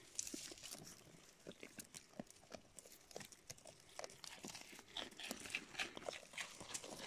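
Goats browsing and stepping through dry twigs close up: irregular crunching and snapping of the brittle twigs, many small sharp clicks.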